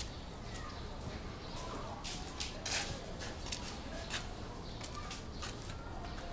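Quiet room tone with a few scattered light clicks and taps, and faint high chirps.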